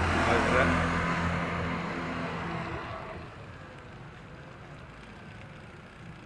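A motor vehicle passing close by, its engine hum loudest in the first second and fading out by about three seconds in, leaving a quieter steady street and wind noise.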